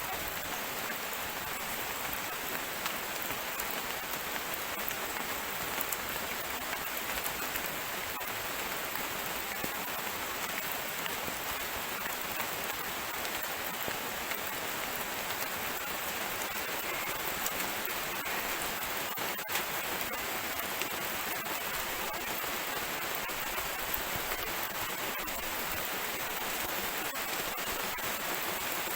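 Steady patter of light drizzling rain, with a few faint drips ticking over it.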